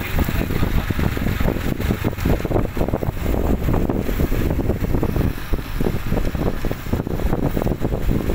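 Wind buffeting the microphone on a moving motorcycle, a loud unsteady rumble over the bike's running and road noise.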